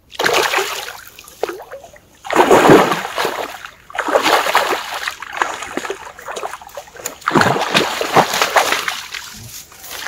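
A large hooked pike thrashing at the surface near the bank, making a run of heavy splashes in about four bursts, the loudest a couple of seconds in.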